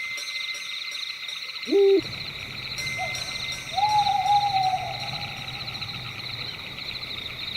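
Owl hooting over a steady chorus of night insects that pulse rapidly at a high pitch. A short, loud hoot comes just under two seconds in, and a longer one begins about four seconds in and slides slowly down in pitch.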